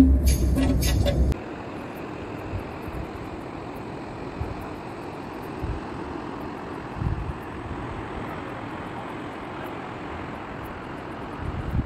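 Background music with a heavy beat cuts off abruptly about a second in. It gives way to a steady rushing of wind and river water flowing through rapids, with a few low wind thumps on the microphone.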